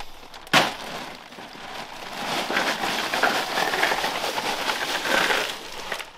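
Crushed ice rattling out of a plastic bag into an ice box, with the bag crinkling. A sharp knock comes about half a second in.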